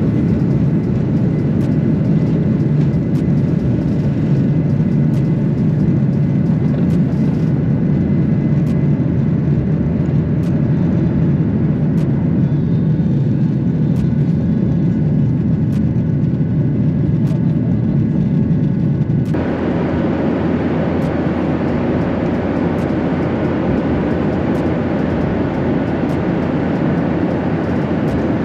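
Jet airliner taking off, heard from inside the cabin: a loud, steady deep rumble of the engines and airframe as the plane leaves the runway and climbs. About two-thirds in, the sound changes suddenly to an even, brighter cabin hiss.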